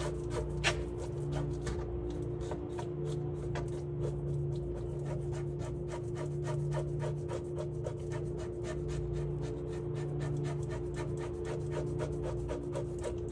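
Scales being scraped off a pollock's skin in rapid back-and-forth strokes, several a second, over a steady low hum.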